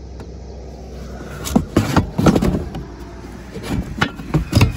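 Old steel chainsaw guide bars knocking and scraping against each other and the box as they are handled. There is a cluster of clatters about one and a half seconds in and another near the end, over a steady low hum.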